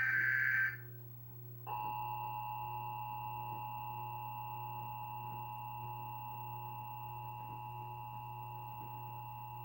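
The end of an EAS data-header burst, a buzzy two-tone warble, stops under a second in. After a short gap, the Emergency Alert System attention signal, a steady two-tone beep near 853 and 960 Hz, starts about two seconds in and holds unbroken, over a low steady hum.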